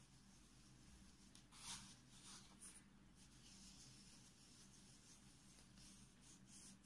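Near silence, with faint scratchy rubbing of fingertips massaging a grainy coffee-and-sugar scrub into the skin of the face, a little louder about one and a half seconds in.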